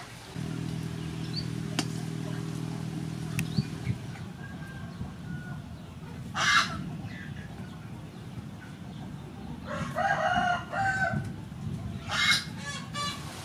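Chickens calling, with a rooster crowing about ten seconds in and loud squawks around six and twelve seconds in. A low steady hum runs under the first four seconds.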